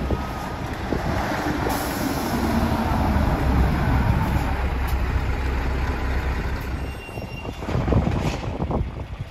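Scania logging truck's diesel engine pulling away under load with a laden log trailer, a deep rumble that builds to its loudest about four seconds in as it passes, then falls away after about seven seconds.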